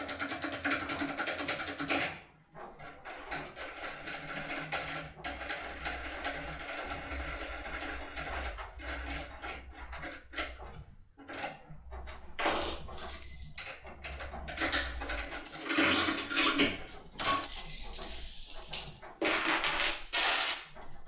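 Foil lockpick working inside a BASI CX6 cylinder lock: a run of small metallic clicks and scrapes as the tool is moved in the keyway. The rattling gets louder and busier about two thirds of the way through.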